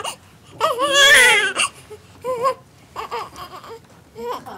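Newborn baby crying: one wavering cry starting about half a second in and lasting about a second, then several shorter, weaker cries.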